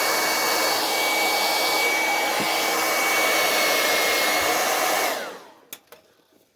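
Hot-air blower running with a steady fan whine, heating a shoe to soften the glue so the sole parts come loose. It is switched off about five seconds in and winds down.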